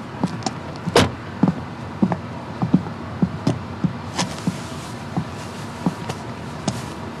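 A run of irregular knocks and clicks, two or three a second, with one sharper click about a second in.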